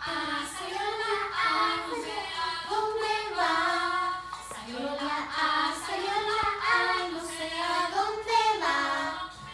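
A girl and a woman singing a Spanish children's song about the five vowels, in held, drawn-out notes, starting with the vowel A.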